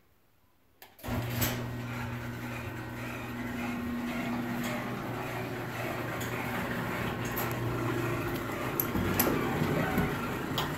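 Electric garage door opener running with a steady motor hum, starting about a second in and easing off around eight seconds, with a few light clicks and knocks near the end.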